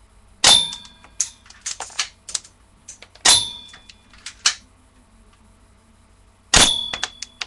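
Airsoft pistol fired three times, about three seconds apart, each sharp shot followed by a quick scatter of small clicks and taps.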